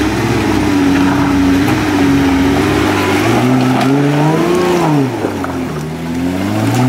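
Jeep Wrangler's engine revving up and down under load as it crawls through mud and over rock, its pitch rising and falling with the throttle. It eases off about five seconds in, then revs up again near the end.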